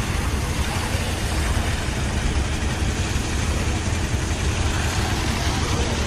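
A small engine-driven water pump running steadily, with water gushing from its hose into the flood mud.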